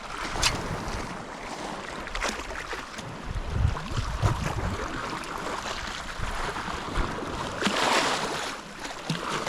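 Sea water washing against a rock ledge, with wind rumbling on the microphone. A few short sharp clicks, and a louder wash of water near the end.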